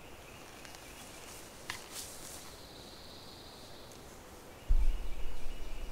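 Quiet woodland ambience with faint high trills and a couple of soft clicks. About three-quarters of the way through, a sudden loud low rumble sets in on the microphone.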